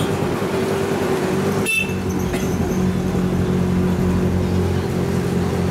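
Vehicle engine running with a steady hum over street noise, heard from a vehicle moving slowly along the street. A brief click comes about a second and a half in.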